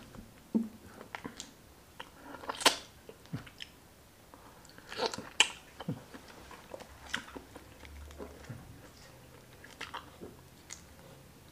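Close-miked eating sounds: the shell of a cooked shrimp from sinigang na hipon cracking and crackling as it is peeled off by hand, with chewing. The crackles come in irregular clusters, loudest about two and a half and five seconds in.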